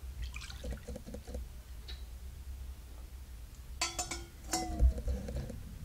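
A metal spoon knocks twice against a glass mixing bowl about four seconds in, each knock ringing briefly, over a faint low hum while melted ghee is poured onto gram flour.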